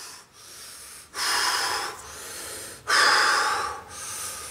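A man breathing heavily: two loud, rough breaths, about a second in and about three seconds in, with quieter breathing between them.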